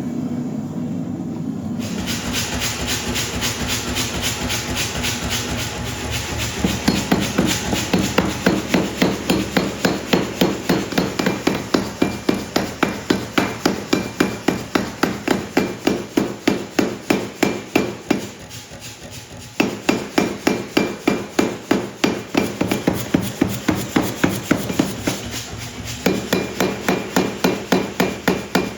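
Hot steel chain being hammer-forged: a long run of rapid, evenly spaced hammer blows, about three a second, over a steady machine hum. The blows start about two seconds in, get louder a few seconds later, and stop briefly about two-thirds of the way through before going on.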